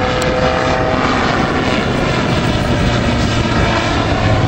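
Autogyro's engine and pusher propeller running steadily at display power as it flies past.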